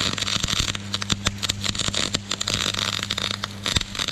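MIG welder arc crackling steadily with many sharp irregular pops as a seam is welded on a steel cattle crush with the heat turned up, over a steady low hum. The arc cuts off at the end.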